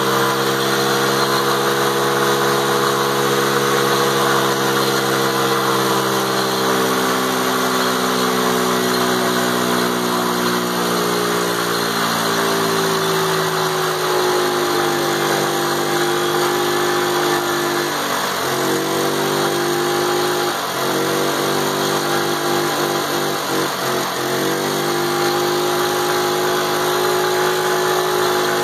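Small 50cc youth ATV engine held at high revs during a stationary burnout, its chained-down rear tires spinning on a wet, lubed surface. The engine pitch sags slowly, then dips sharply and recovers three times, a few seconds apart, in the second half.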